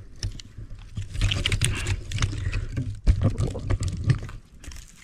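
Dry pine cones being picked up and handled in an armful, their woody scales clicking and rattling against each other in a rapid, irregular series, with a low rumble through the middle of it.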